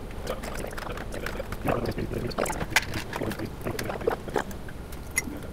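Irregular small metal clicks and scrapes from a 9/64 hex key turning out the screws on top of a cryostat's vacuum shield, over a steady low hum.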